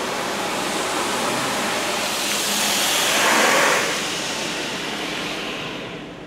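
Automatic in-bay car wash gantry working over the car, heard from inside the cabin: a steady rushing noise that swells to its loudest about three seconds in, then fades near the end.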